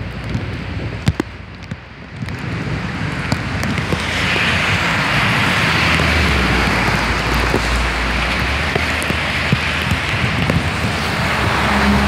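Heavy rain driven by strong storm wind. Scattered drops tick at first, then a gust swells the rain's hiss over about two seconds into a loud, steady rush with a low rumble beneath it.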